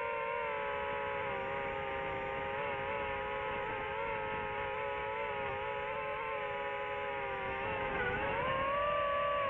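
Drone propellers whining steadily. The pitch dips briefly and then rises again about eight seconds in.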